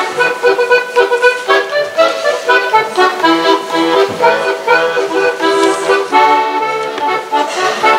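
Accordion music playing, a quick run of notes over a steady pulse.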